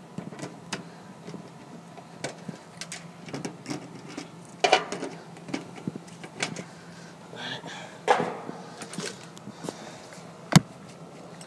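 Hands working on an air conditioner's capacitor and meter leads: scattered clicks, knocks and rustles of handling, with one sharp knock about ten seconds in, over a faint steady hum.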